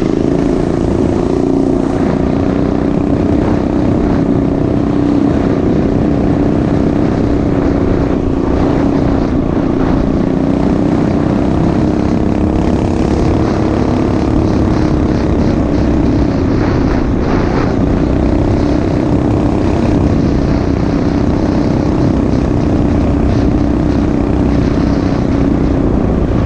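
Mini bike engine running steadily at a nearly constant speed while riding, with little change in pitch.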